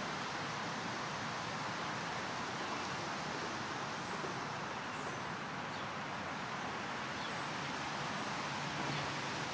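Steady rush of distant road traffic, with a few faint, short, high bird chirps.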